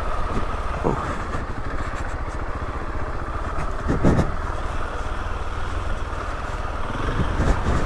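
KTM 690 Enduro R's single-cylinder engine running steadily at low revs while riding, with a thump about four seconds in.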